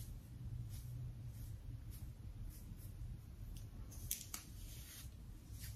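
Faint, short scratchy swishes of a comb drawn through hair, several strokes, the strongest about four seconds in, over a low steady room hum.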